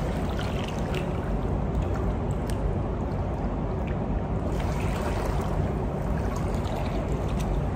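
Pool water sloshing and lapping around a person walking sideways through chest-deep water, with scattered small splashes.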